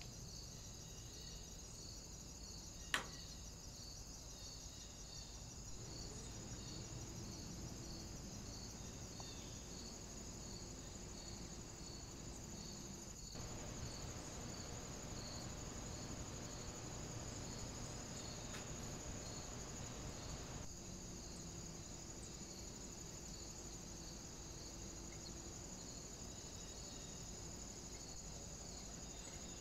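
Faint crickets chirping in a steady run of evenly spaced high-pitched pulses, with a single sharp click about three seconds in.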